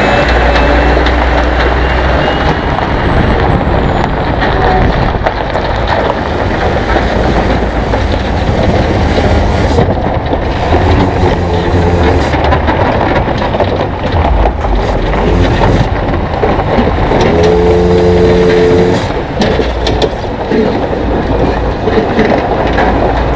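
Loaded Volvo FH16 500 hp log truck and trailer descending a steep gravel track: a steady heavy rumble and rattle from the trailer, with its tyres rolling over gravel and the engine running beneath. A short pitched note sounds about 17 seconds in.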